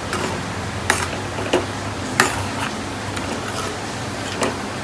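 A metal ladle stirring thick spinach gravy in a kadai, knocking against the pan's rim and sides in about five irregular clicks over a steady low hum.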